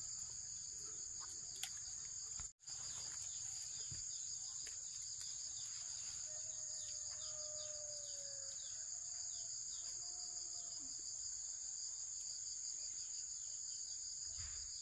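Steady, shrill insect chorus of continuous high trilling, with a brief cut-out about two and a half seconds in. Faint short animal calls sound underneath in the middle.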